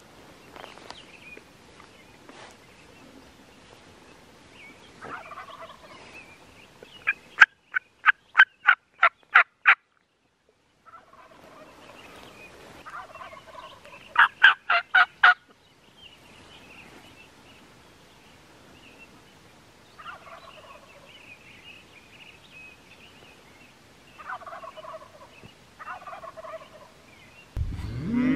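Merriam's wild turkeys gobbling several times at a distance. Two loud runs of sharp, evenly spaced yelp-like notes, about three a second: about eight near the middle, six more a few seconds later. A cow starts mooing at the very end.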